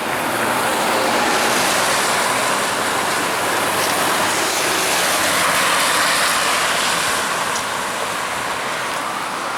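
Heavy storm wind blowing as a loud, steady rush that builds over the first second and eases slightly near the end.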